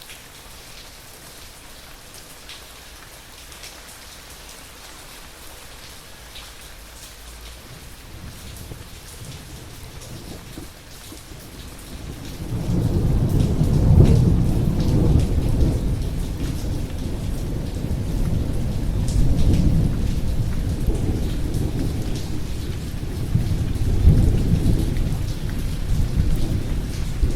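Steady rain falling, with fine pattering drop ticks. About twelve seconds in, a long low roll of thunder builds and rumbles on, swelling again a couple of times toward the end.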